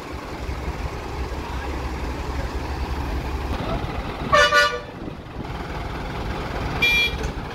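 Diesel engines of Escorts Hydra pick-and-carry cranes running with a steady low rumble. About four seconds in, a horn toots loudly for about half a second, and near the end a shorter, higher beep sounds.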